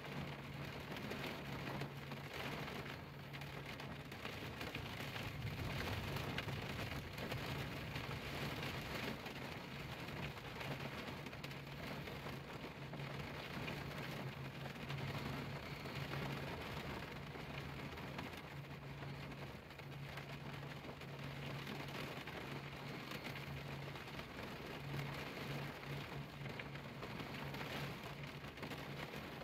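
Rain falling on a car windshield: a steady, even patter of drops. A low steady hum runs underneath.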